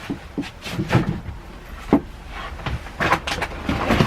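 Irregular knocks and bumps of stored luggage and bags being shifted and handled, with rustling that builds near the end.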